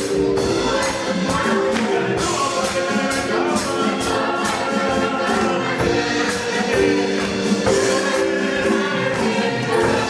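Children's choir singing an upbeat gospel song live with a band of keyboard and drum kit, over a steady beat of percussion hits about twice a second.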